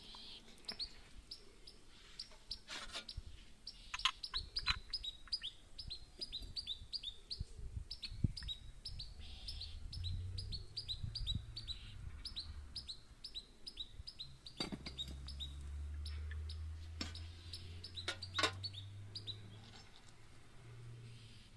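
Small birds chirping: a long, rapid series of short, high, falling chirps. A low rumble comes in about halfway through, and there are a few sharp knocks.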